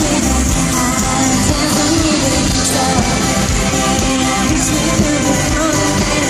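Live pop concert music over a loud PA, heard from among the audience: a female lead singer with a band that includes electric guitar.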